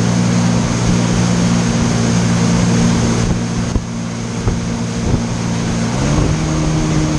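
Jet ski engine running steadily at speed while towing a tube, with water spray and wind noise over it. Its pitch rises about six seconds in as the revs go up.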